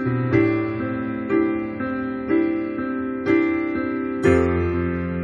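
Slow, gentle piano music, a new note or chord struck about once a second, with a fuller, deeper chord coming in near the end.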